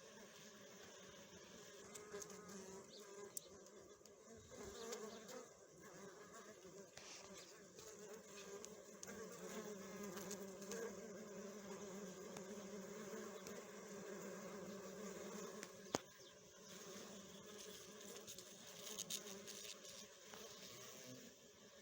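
A swarm of bees humming at a hive: many overlapping buzzes make a steady, wavering drone. Two brief sharp clicks come through, one early and one about three-quarters of the way in.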